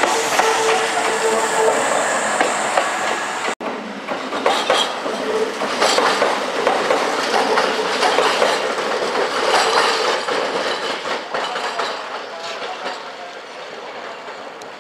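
Kintetsu electric train running through the station, its wheels clacking over rail joints and points. There is a sudden break a little over three seconds in, after which the clacking goes on and then fades as the train moves away.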